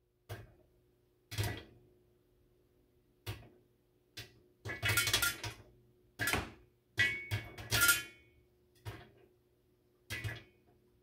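Popcorn kernels popping under the stainless-steel lid of a Saladmaster electric skillet. The sharp pops come irregularly: a few single ones at first, then quicker runs of several together past the middle.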